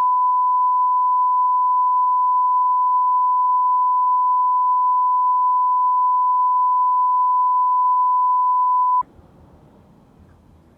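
A single steady electronic beep tone at about 1 kHz, held unbroken for about nine seconds, then cut off abruptly, leaving only faint background noise.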